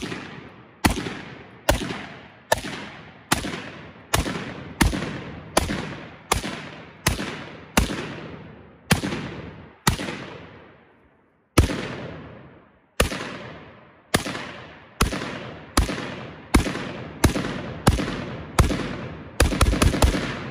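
An AR-15-style rifle in 5.56 fired semi-automatically, about two dozen shots at roughly one a second, each with a short echo dying away. Near the end comes a quick string of four or five shots.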